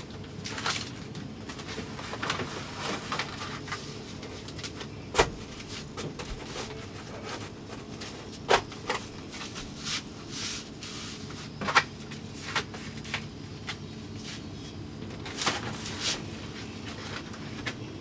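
Handling noise from sheets of insulation being fitted and pressed by hand against a sailboat's inner hull: light rustling, with several sharp knocks scattered through, over a low steady background hum.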